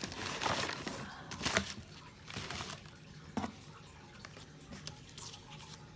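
Packaging and small parts being handled: a burst of rustling near the start, then a few sharp clicks and light rustling.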